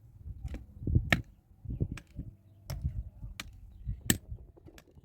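A series of sharp striking blows, about seven, roughly one every two-thirds of a second, each with a dull low thud, like something being struck repeatedly by hand.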